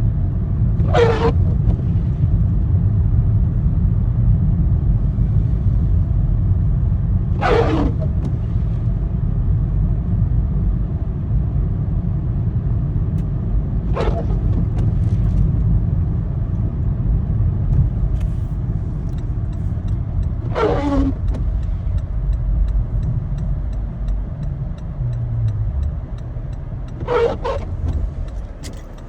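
Car driving, a steady low rumble of engine and road noise that eases off near the end. About every six and a half seconds a short falling swish cuts through, five times in all.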